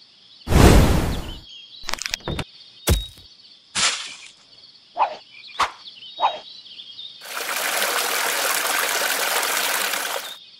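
Cartoon sound effects over a night-time nature ambience of chirping insects. A series of short hits and whooshes comes in the first six seconds, then about three seconds of steady hissing noise that stops shortly before the end.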